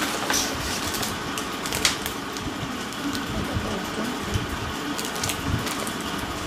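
Rustling of a paper shopping bag and crinkling of small plastic zip packets as they are taken out and handled, a few short sharp crinkles at a time over a steady background hum.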